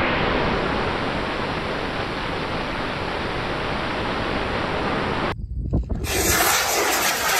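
A 75 mm L740 experimental rocket motor with a cast finocyl grain, burning: a steady rush of exhaust noise and airflow on the rocket's own camera. About five seconds in it cuts off, and after a brief gap the launch goes on from the ground, heard as a distant motor rush with wind.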